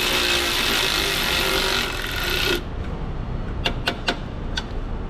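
A power tool's motor running steadily, cutting off suddenly about two and a half seconds in, followed by a few sharp metallic clicks.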